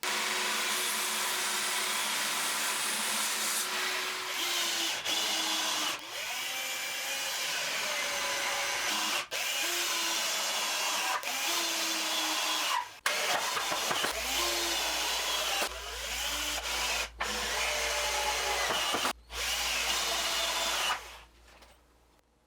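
Electric power tool running through a long stretch of work, its motor pitch sagging under load and recovering again and again, with a few brief drop-outs, before it stops near the end.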